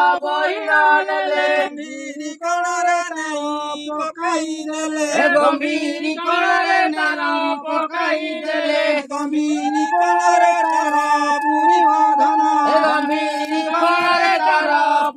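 Voices singing a slow Odia devotional puja song in drawn-out lines, with a long held note about ten seconds in.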